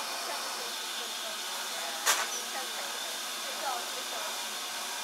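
Steady hiss of steam escaping by the cylinders of the Peppercorn A1 Pacific steam locomotive 60163 Tornado as it stands still. A single sharp click about two seconds in.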